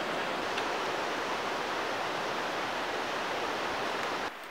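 Rushing creek white water, a steady, even rush. Near the end it drops abruptly to a quieter background.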